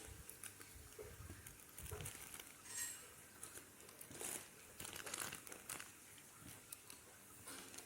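Plastic grocery packaging crinkling and rustling in quiet, irregular bursts as items are handled.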